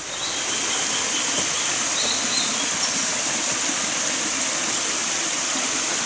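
Mountain stream rushing steadily: an even, unbroken hiss of running water.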